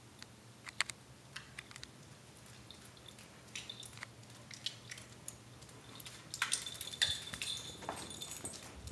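A corgi's claws clicking and tapping on a hardwood floor as it moves about, with light clinks mixed in; the clicks come scattered at first and grow busier in the last few seconds.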